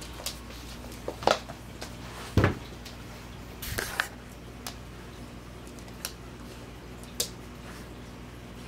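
Scattered clicks and knocks of a pit bull puppy moving about on a hardwood floor and rug, with camera handling noise. The loudest is a dull thump about two and a half seconds in. A steady low hum runs underneath.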